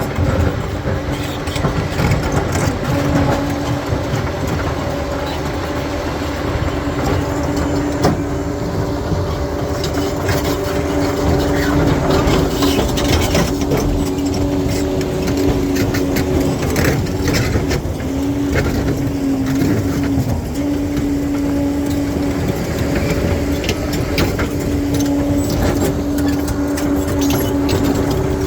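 Crawler bulldozer working over rock: its diesel engine runs steadily with a constant whine, over the rattle and clank of its steel tracks and the crunch of stone.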